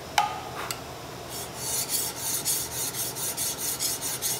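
An 8-inch file draw filing the flat of a steel flintlock longrifle barrel to take off the milling marks. Two sharp metallic clinks come near the start, then after a short lull the file rasps in quick back-and-forth strokes, several a second, sliding along the metal without being lifted.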